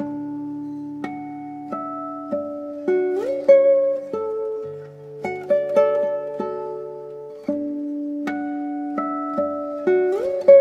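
Solo classical guitar playing a slow, fingerpicked sevdalinka melody over held bass notes, with a slide up into a note about three seconds in and again near the end.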